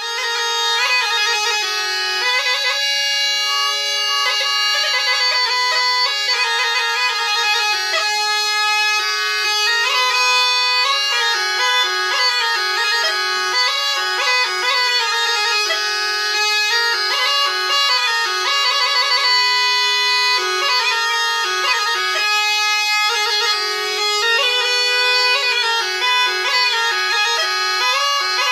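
Background music: a bagpipe tune played over a steady held drone.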